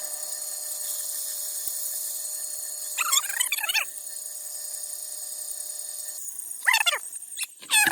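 Metal lathe running steadily with a high whine while a hand file is pushed against the spinning screwdriver shaft, the file strokes squealing briefly about three seconds in, again near seven seconds and at the very end.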